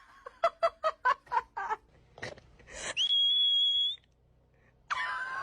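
A quick run of short chirping pulses, then a steady high whistle held for about a second, followed near the end by a louder wavering multi-tone call.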